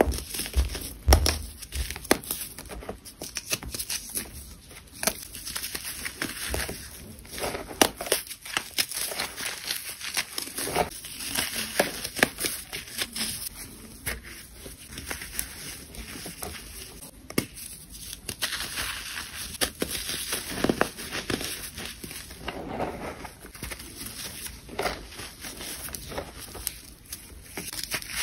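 Dry clumps of baking soda mixed with sand crunching and crumbling as fingers squeeze and break them, a dense run of irregular crackles over a gritty rustle.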